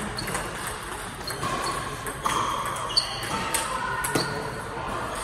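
Table tennis backhand rally: the celluloid-type ball clicking off the paddles and bouncing on the table in an irregular run of sharp ticks, over a steady background hubbub.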